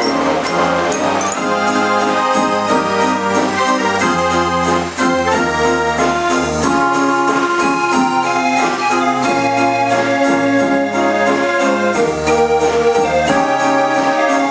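A 66-key Gavioli-system street organ playing a tune on its pipes: held chords over changing bass notes, with a steady beat.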